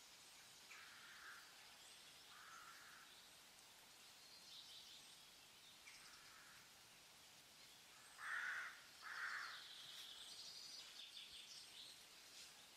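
Faint outdoor birdsong: scattered soft calls and high chirps, with two louder short calls in quick succession about eight seconds in.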